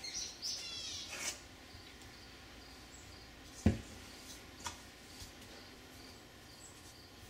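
Hands working soft biscuit dough in a stainless steel mixing bowl, with one sharp knock about halfway through and two lighter taps after it. Birds chirp faintly in the background, with a short trill near the start.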